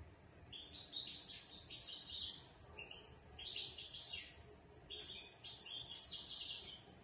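European goldfinch of the large 'major' type, caged, singing: three bursts of quick, high twittering notes, each lasting one to two seconds.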